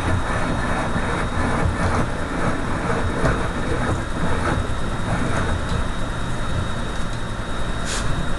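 Steady low rumbling noise with faint, irregular taps about once a second, as the copper bars of a starter motor armature are driven back out with a punch and hammer.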